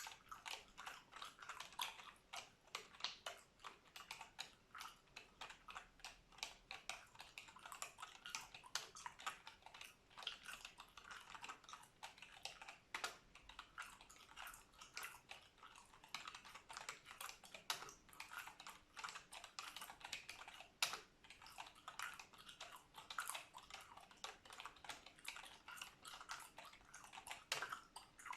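Continuous fast typing on a computer keyboard, a dense run of irregular key clicks, with gum chewing close to the microphone.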